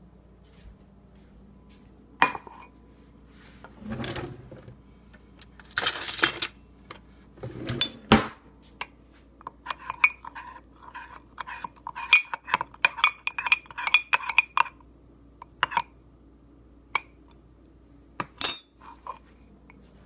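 Metal spoon stirring batter in a ceramic mug, clinking and scraping against the mug's sides: scattered scrapes at first, then a quick run of ringing taps for several seconds, and a few last clinks.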